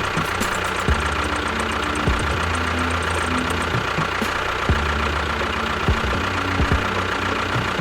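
Small motor of a DIY miniature tractor running steadily with a low hum and a thin steady whine, with a few sharp knocks scattered through.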